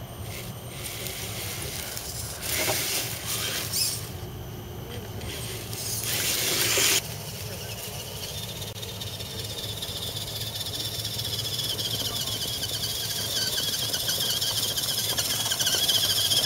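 HSP Pangolin electric RC rock crawler's motor and gears whining high and wavering, growing louder as the truck comes closer. Two short bursts of hiss come before the whine.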